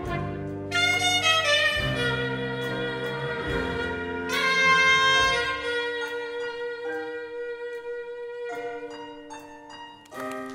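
Big band jazz, a saxophone solo over piano and bass, slowing into the tune's closing held notes. The bass drops out about halfway, and the music dies away just before the end.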